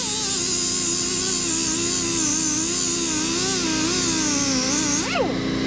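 Quarter-inch pneumatic die grinder with a flap wheel grinding an aluminum block: a whine whose pitch wavers as the wheel is pressed into the metal, over a high hiss and a steady low hum. Just after five seconds the whine rises sharply in pitch, then drops and stops.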